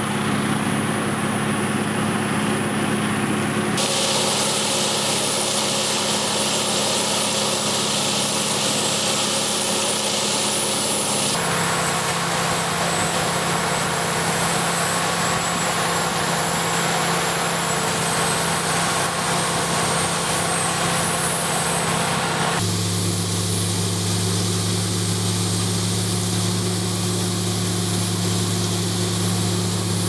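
Peterson 5000H whole-tree chipper running: a steady machine drone made of several low hum tones under a high hiss. The mix changes abruptly three times, about four, eleven and twenty-three seconds in, then stops dead at the very end.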